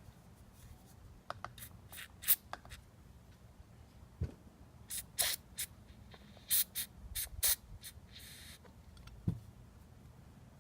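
Short hissing spritzes of aerosol carburetor cleaner, mixed with light clicks and a couple of soft knocks from small carburetor parts being handled, as the needle-valve seat is cleaned.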